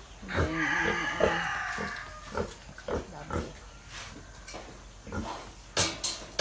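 Pigs grunting, with a longer, higher-pitched call in the first two seconds, then short separate grunts.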